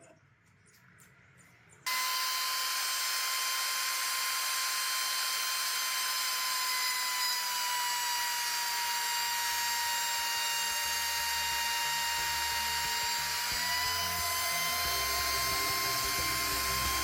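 Trim router with a straight bit running at a steady high whine, starting abruptly about two seconds in after a quiet start with a few faint taps. It is cutting the waste between dovetails, its pitch dipping slightly under load and picking back up near the end, with a low rumble from the cut growing in the second half.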